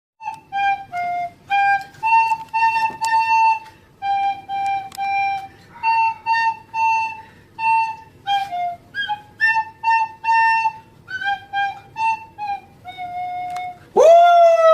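A simple melody whistled through the nose, a flute-like tune of short, clear notes with about two or three notes a second. Near the end a louder note swoops up in pitch and holds.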